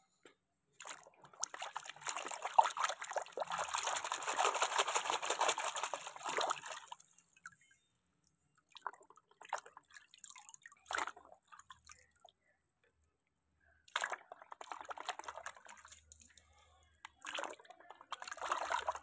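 Muddy water splashing and dripping as a toy tractor is swished and dunked by hand to wash it: a long stretch of sloshing at first, then several shorter bursts of splashing.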